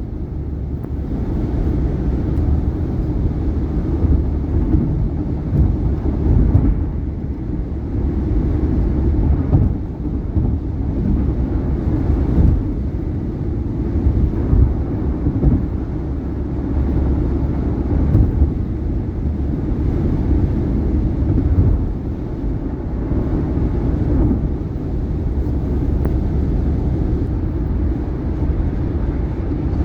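Tyre and road noise of a 2018 Subaru Outback at highway speed, a steady low rumble, with occasional thumps as the tyres cross bridge joints.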